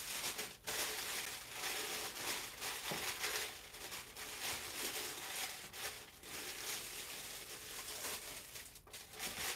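Thin plastic slow-cooker liner crinkling and rustling as it is unfolded and worked into a crock pot.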